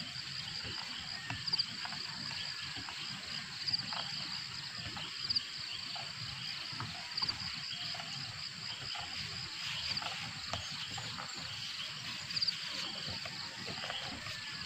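Steady outdoor insect chorus, with a short high chirp repeating irregularly every two seconds or so.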